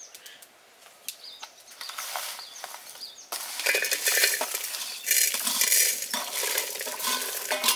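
Whole dry spices scraping, rattling and clinking against a metal pan and spoon as they are dry-roasted for a masala. It starts with a few scattered clicks about a second in and turns into denser, louder scraping from about three seconds in.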